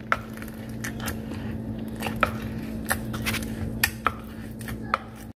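Wooden pestle pounding fried plantain slices in a wooden mortar (pilon), a run of irregular knocks about two a second as the plantain is mashed for mofongo. A faint steady hum lies underneath.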